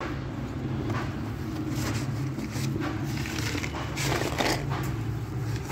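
Clear plastic bag rustling and crinkling as a hand reaches in among thick slate pencils, in irregular scrunches with the loudest burst about four seconds in, over a steady low hum.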